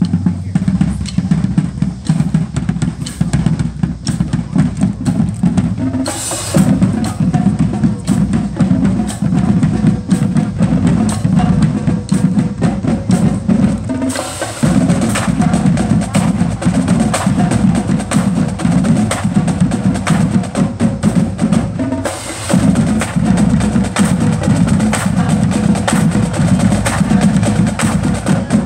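Marching band drum line playing: snare, tenor and bass drums in a dense, driving rhythm, with a bright crash about six seconds in and again around fourteen seconds.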